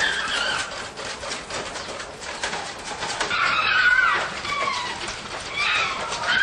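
Caged fur-farm animals calling: several short, high calls that bend and fall in pitch, near the start, a little past halfway and near the end, over a scatter of faint clicks.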